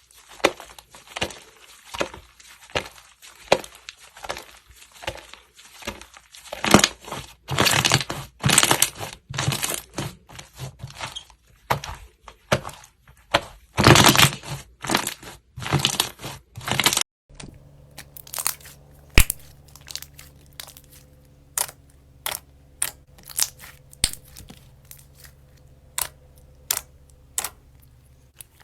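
Slime being squeezed and pressed by hand, giving a dense run of sticky crackling and popping clicks. About two-thirds of the way through the sound changes to sparser, separate pops over a faint low hum.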